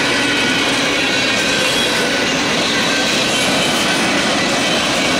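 Freight cars of a long manifest train rolling past at close range: steady, loud rumble and rattle of steel wheels on the rails, with faint high-pitched squealing tones over it.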